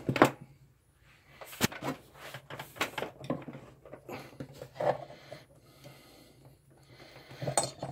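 Handling noises as a power cable is dragged across a workbench and a soldering station is turned around to plug it in: a sharp click just after the start, another about a second and a half in, then scattered rustles and light knocks.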